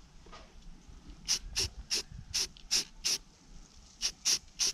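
Aerosol spray paint can hissing in a string of short bursts, about nine quick puffs with a brief pause near the middle: misting on a light tack coat of paint.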